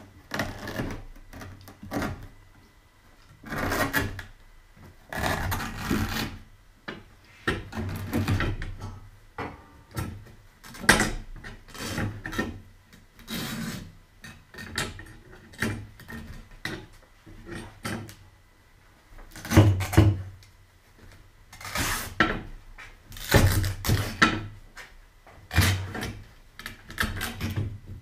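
Old upholstery fabric being ripped and pulled off a sofa's wooden slatted frame by gloved hands. It comes as a run of irregular rasping tears and rustles, each about a second long, mixed with wooden clunks from the frame.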